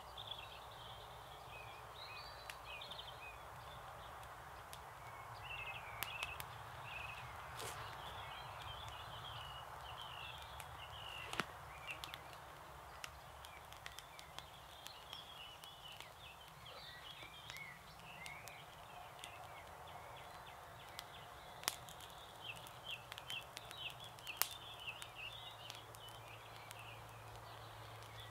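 Birds singing, with scattered sharp cracks and snaps from a smouldering campfire of damp kindling being tended by hand.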